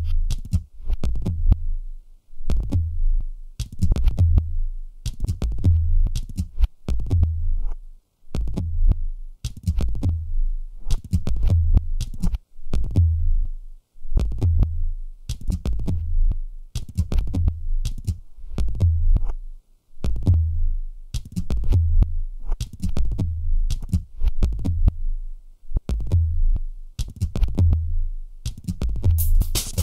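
Background music with a steady, bass-heavy beat.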